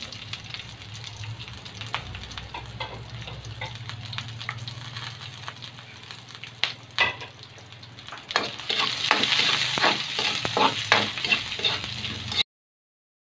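Sliced onion, ginger and garlic sizzling in hot oil in a metal wok as the sauté base is started, with a spatula clicking and scraping against the pan as they are stirred. The sizzle and clatter grow louder about two-thirds of the way in, and the sound cuts off suddenly near the end.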